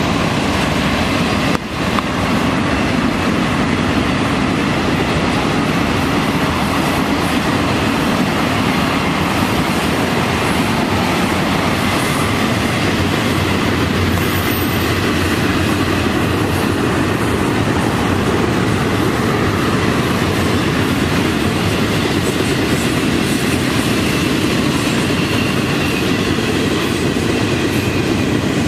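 Long freight train of autorack and double-stack container cars rolling past close by: a loud, steady noise of steel wheels running on the rails.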